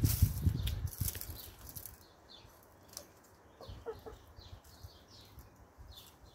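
Domestic hens in garden soil: a burst of rustling and scratching for the first couple of seconds, then a few short, soft clucks about four seconds in.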